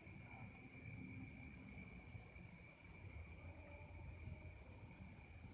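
Faint night insects, crickets: a steady high trill alongside a higher chirp pulsing about twice a second, over a low rumble.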